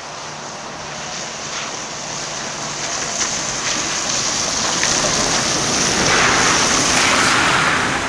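Double-deck trolleybus approaching and passing close on a wet road, its tyres hissing through the water on the tarmac, growing louder towards the end, with a few light clicks.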